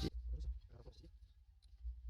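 Faint handling sounds: soft rubbing and a few light clicks over a low rumble, as the steering rack bushing is wiped with a rag.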